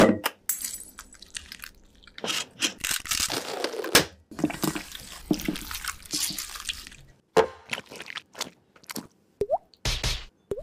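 Peeled hard-boiled eggs being squished and mashed by gloved hands: an irregular run of short wet squelching sounds.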